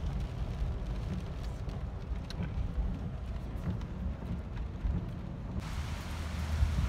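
Low rumble of a car driving in the rain, heard from inside the cabin. A little over five seconds in it cuts suddenly to the steady hiss of rain falling outdoors.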